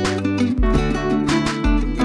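Background music led by strummed acoustic guitar with low bass notes, the strums falling about twice a second.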